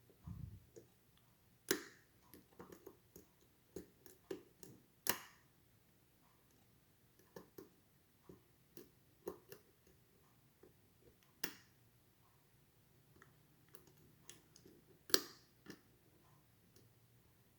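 Faint, irregular clicks and light taps of a lock pick and tension wrench working the pins inside an ASSA 700 lock cylinder, with four sharper clicks standing out.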